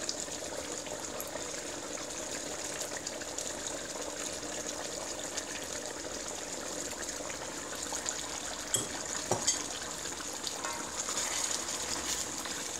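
A metal fork scraping and tapping on a ceramic plate as it pulls cooked chicken off the bone, with a few sharp clicks about nine seconds in, over a steady rushing hiss.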